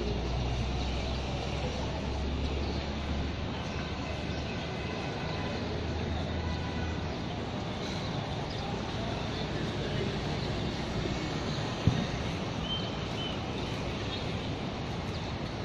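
Outdoor city ambience: a steady wash of distant traffic, with a low rumble for the first seven seconds or so and a single sharp click about twelve seconds in.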